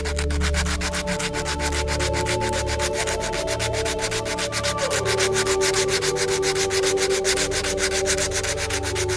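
Sandpaper rubbed by hand in quick, even back-and-forth strokes along the laser-cut edge of a foam wing, smoothing off the hard, uneven edge left by the laser cutting.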